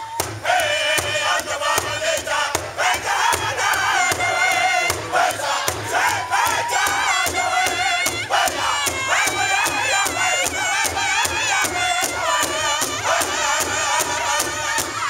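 Powwow drum group singing a high-pitched song together over a large hide-headed powwow drum, which several singers strike in unison with sticks in a steady, fast beat.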